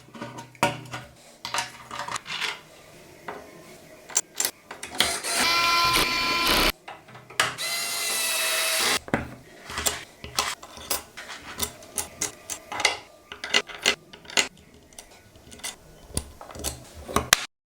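Metal jig parts and hand tools being handled and fitted, with many short clicks and knocks. A small power tool's motor runs twice, briefly, near the middle.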